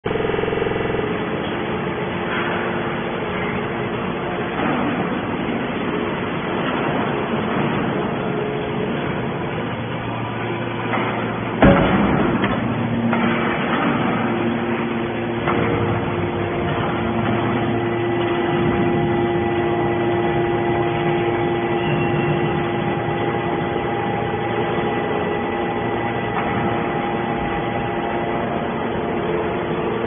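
TCM hydraulic scrap metal baler running: a steady hum and whine from its hydraulic pump, with one loud metal bang about twelve seconds in. The whine settles into a steadier tone from about seventeen seconds in.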